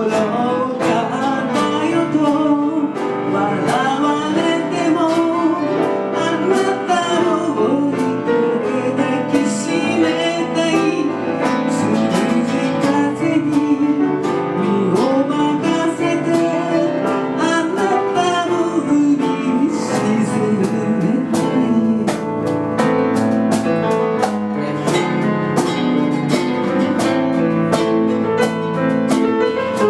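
A singer's voice in a slow ballad over a backing track of guitar and piano; the voice falls away about two-thirds in, leaving the accompaniment.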